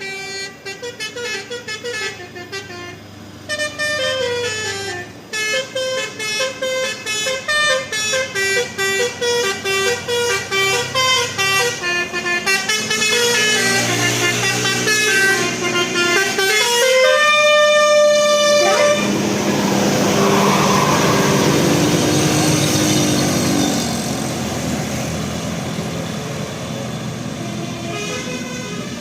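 Bus telolet horn (Basuri type) playing a melody of quick stepped notes for about seventeen seconds, ending on a long held note. After that comes a steady rush of engine and road noise from the bus going by.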